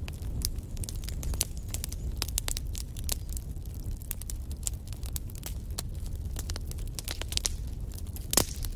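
Wood fire burning in a fireplace: a steady low rumble with frequent irregular crackles and pops, and one louder snap near the end.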